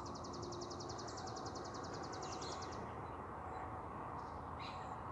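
A fast, high-pitched trill of rapid, evenly spaced pulses from a small animal outdoors. It lasts about three seconds and then stops, over a steady low background rumble.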